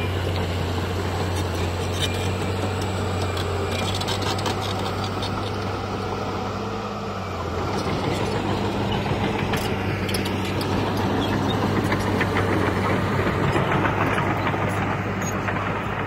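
Heavy diesel earth-moving machinery running: a steady engine hum with scattered clanks and rattles. About halfway through, the hum gives way to a louder, rougher noise that builds toward the end.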